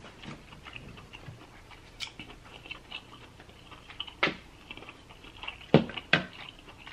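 Close-miked chewing of lobster claw meat, with soft irregular mouth noises and a few sharper wet smacks, the loudest two about a second apart near the end.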